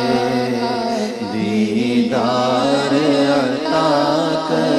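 Naat sung by a male voice, drawing out a long wavering note over a steady low drone.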